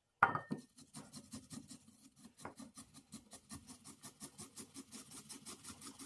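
Boiled potato being grated by hand on a metal grater set in a bowl: a knock just after the start, then a steady run of short rasping strokes, about four to five a second.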